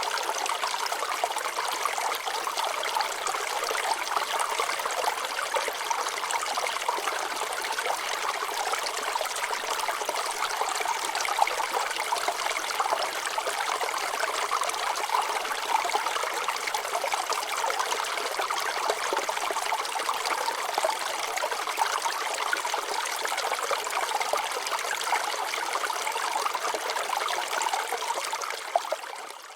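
Water flowing and trickling over rocks, a steady babbling stream sound that dips away near the end.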